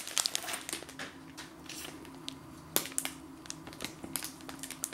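Shiny metallised plastic snack packet crinkling and crackling as it is handled, in scattered small crackles with one sharper crack near the middle. A faint steady low hum lies underneath.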